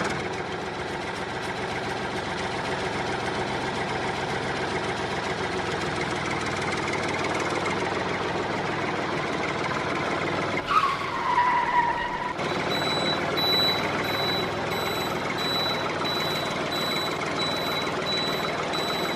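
Vehicle engine running steadily, with a falling whine a little past halfway and then a high, evenly pulsing beep like a reversing alarm.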